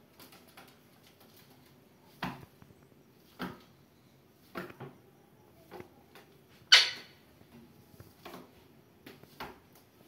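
Indian ringneck parakeets moving about on a wooden tabletop: scattered short taps and clicks, roughly one a second, the loudest a sharper one about seven seconds in.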